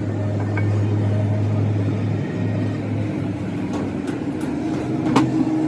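A machine running with a steady low hum, with a few short sharp clicks, the loudest a little past five seconds in.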